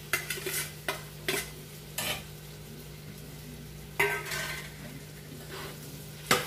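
Steel spoon and ladle knocking and scraping as boiled potato pieces go from a steel bowl into a pan of frying onions and are stirred: a quick run of sharp metal clinks in the first two seconds, a louder clank about four seconds in and another near the end, over a low sizzle and a steady low hum.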